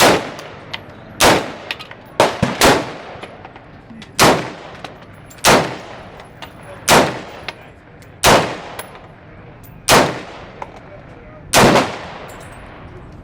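Ruger SR556 AR-15 rifle firing about ten single shots, roughly one every second and a half, each shot followed by a short echo.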